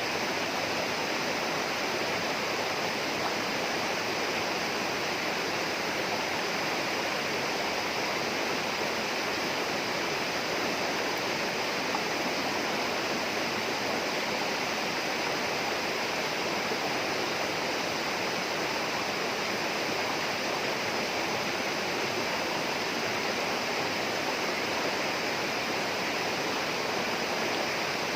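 Flowing water rushing steadily, as of a rainforest stream.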